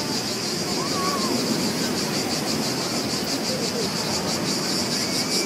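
Beach ambience sound-effect track: a steady wash of ocean surf, with a high insect trill pulsing evenly above it that grows stronger toward the end.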